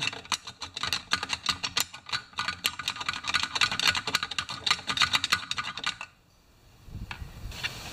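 Quick, dense run of dry clicking and rattling as hardened deposits are worked loose inside an old Pioneer Partner 500 chainsaw's fuel tank. It stops about six seconds in, and a soft low handling rumble follows near the end.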